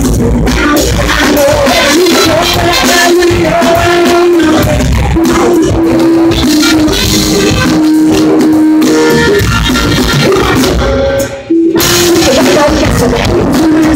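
Live rock band playing with a female lead singer holding long sung notes over it. The music cuts out for an instant about three-quarters of the way through, then comes straight back.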